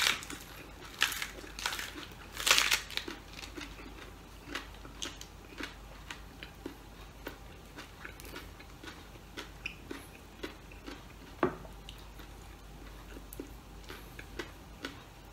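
A man chewing and crunching food, with scattered wet mouth clicks and the crisp crackle of a fresh cabbage leaf being peeled and handled. The loudest crunches come in the first three seconds, then softer ones, with one sharp click about eleven and a half seconds in.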